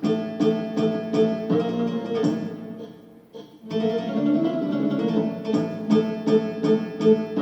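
LP6110E oriental arranger keyboard playing its built-in Turkish rhythm style, starting with its intro: a plucked-string accompaniment over a steady beat. It drops away briefly about three seconds in, then carries on.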